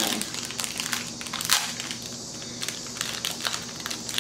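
Small clear plastic jewelry bag crinkling and crackling as it is torn open by hand, in quick irregular crackles, the sharpest about a second and a half in.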